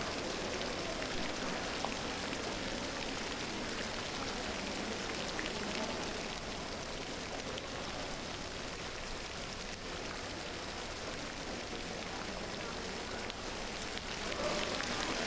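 Steady, even rain-like hiss of water in an indoor diving pool.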